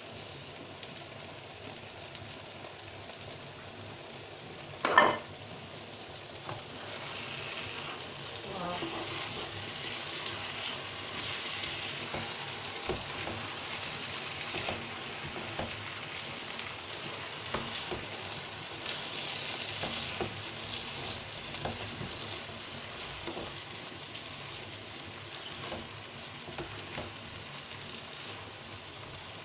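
Stew sizzling in hot oil in a pot while it is stirred, with one sharp knock about five seconds in. The sizzling grows louder from about seven seconds in, then eases back after about twenty seconds.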